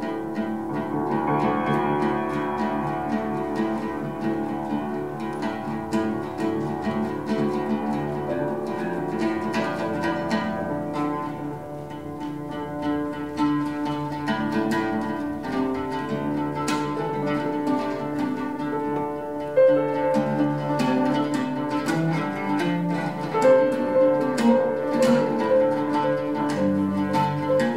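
Oud and piano playing together, plucked oud lines over sustained piano notes. From about twenty seconds in, sharp repeated note attacks come louder and quicker.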